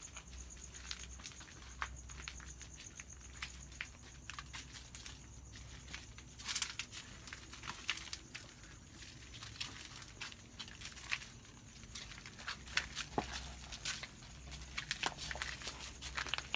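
Irregular small clicks, crackles and rustles of people moving about and handling gear, over a low steady hum.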